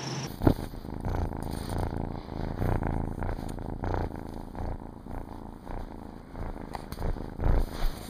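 A kitten purring steadily, with a couple of soft bumps, the loudest near the end.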